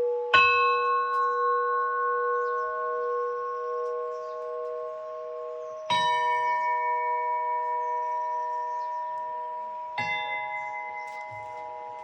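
A bell is struck three times, about every four to five seconds, over a ring already sounding. Each strike rings on for seconds with several overtones and fades slowly.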